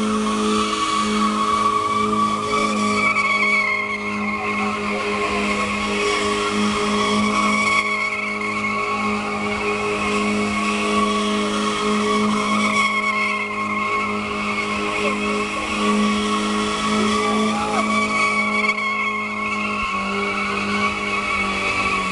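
BMW E30 coupe doing a burnout in donuts: the engine is held at steady revs while the spinning rear tyres screech continuously.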